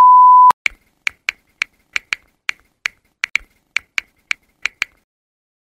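A loud, steady, high test-pattern beep that cuts off sharply about half a second in, followed by about fourteen sharp typing clicks at an uneven pace over the next four seconds as a search term is keyed in.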